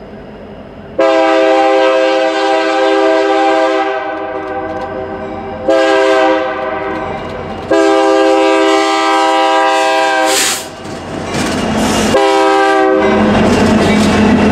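Multi-chime air horn of a BNSF SD70MAC diesel locomotive leading a train, sounding a series of long and short blasts as it approaches. Near the end the locomotives pass close by with a loud diesel engine hum and wheel-on-rail noise.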